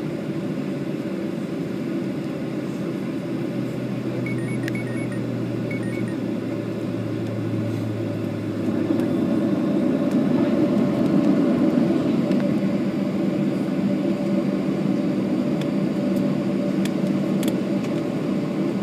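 Cabin noise of a Boeing 737 taxiing: the engines at idle make a steady hum with a low drone, growing a little louder about nine seconds in.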